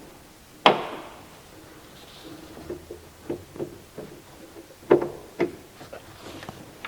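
Hand-work knocks and clanks as a leaf spring's front eye and bush are worked into the chassis mounting: one loud strike with a short ring about a second in, a run of lighter taps, then two more hard knocks around five seconds in.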